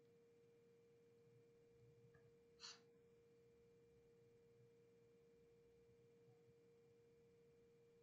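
Near silence: room tone with a faint steady electrical hum, and one short breath about two and a half seconds in.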